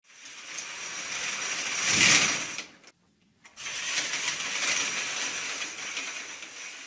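Stage curtains sliding closed on their rail, swelling to a peak about two seconds in and stopping. After a short pause they slide open again, fading near the end.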